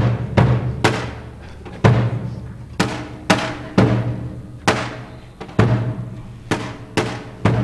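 Tapan, the large double-headed folk bass drum, beaten alone in an uneven, limping rhythm. Deep mallet strokes alternate with lighter strikes about twice a second, each ringing on briefly.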